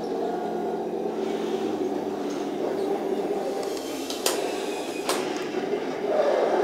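Heng Long RC tank running: a steady engine-like drone, likely from its built-in sound unit, with drive noise. Two sharp clicks come about four and five seconds in.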